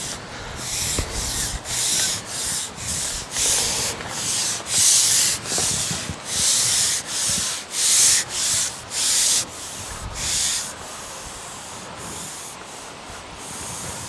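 Preston Response margin pole being pushed out hand over hand, sliding through the angler's grip in a run of short rubbing swishes, about two a second, which stop about ten seconds in.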